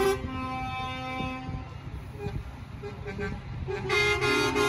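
Truck air horns sounding in held multi-note chords over a low rumble. They fade to a few short toots in the middle, then a loud multi-tone chord comes in again near the end.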